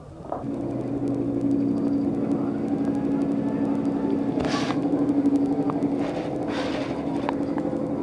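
A machine starts up and runs with a steady hum, growing louder over the first second. Two short hisses come in the middle.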